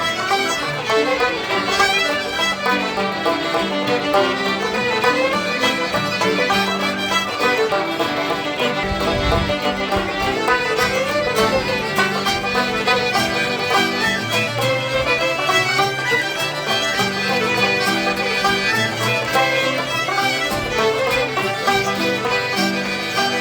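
Background music: a lively Celtic folk tune led by fiddle.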